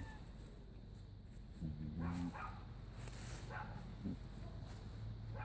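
A short, low pitched animal call about two seconds in, with a few faint short high chirps scattered around it.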